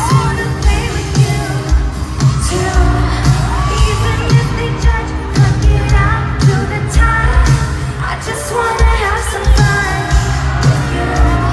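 Live pop music over a concert PA: a woman's lead vocal sung into a microphone over a heavy, steady kick-drum beat of about two strokes a second.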